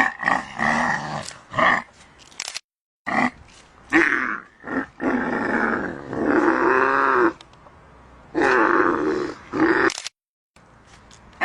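Camel in labour calling repeatedly: a run of loud, drawn-out, pitch-bending vocal calls with short breaks between them.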